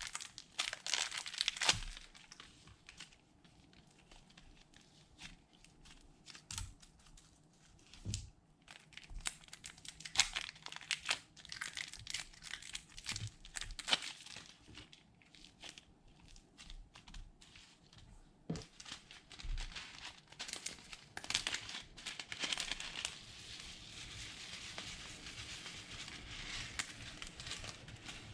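Slime being squished and worked by hand, with irregular crackling and popping clicks. The crackling turns denser and more continuous in the last third.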